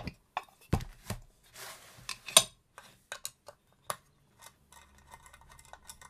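Handling noises from a metal volume pedal and its case: a run of light clicks, metallic clinks and knocks, with a short rustle just before the loudest knock about two seconds in, as the pedal is turned over and set down for unscrewing.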